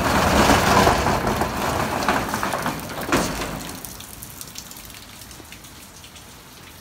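Corrugated steel roll-up door of a storage unit being rolled open: a loud rattling rumble that ends with a knock about three seconds in. Rain then goes on falling steadily, quieter.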